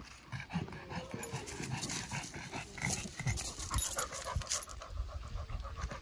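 Pekingese panting heavily in quick, rhythmic breaths, with dry fallen leaves crunching under its feet.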